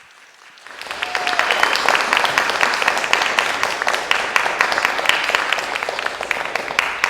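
Audience applause: many hands clapping, starting about a second in and carrying on steadily, with a brief voice-like call near the start.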